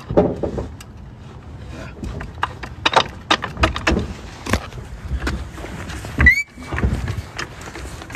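Irregular metal clicks and knocks from tools and a car jack being handled and set up under a car. About six seconds in there is a short chirp that rises into a steady high tone for about half a second.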